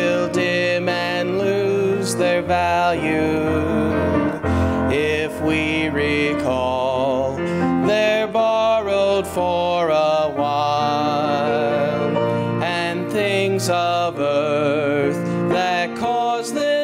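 A gospel song sung over instrumental accompaniment, the voice holding long notes with vibrato.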